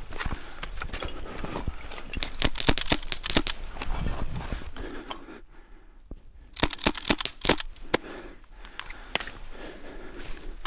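Airsoft gunfire: two rapid strings of sharp cracks, one about two seconds in and another about six and a half seconds in.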